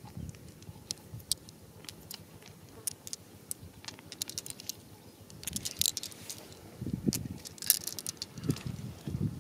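Glass stones and marbles clicking against each other as they are picked out of dry dirt and gathered in a hand. The sharp clicks are scattered, thicker in the middle and near the end, over soft scraping and crumbling of the soil.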